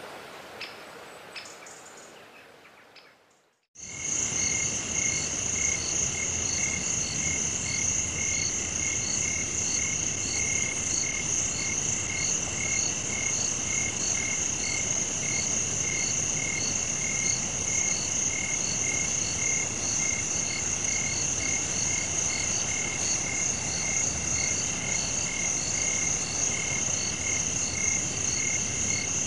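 Night chorus of frogs and insects: a steady high-pitched shrill with pulsed calls repeating evenly about twice a second. It starts abruptly about four seconds in, after a few faint clicks fade to near silence.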